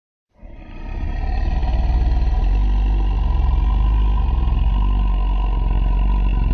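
Godzilla monster sound effect: a deep, loud rumble that swells in over about a second and then holds steady.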